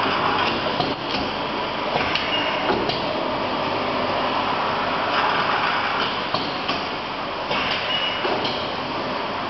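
L-type automatic sealing machine and shrink tunnel running as a packaging line: a steady mechanical running noise with a number of short clunks and clicks at uneven intervals, roughly once a second or two.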